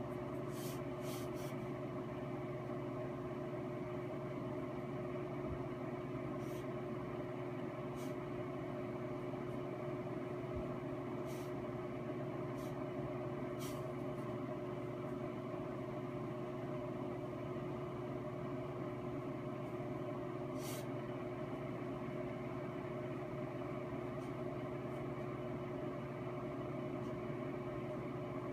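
A steady mechanical hum with several fixed pitches, unchanging throughout, with a few faint scattered ticks.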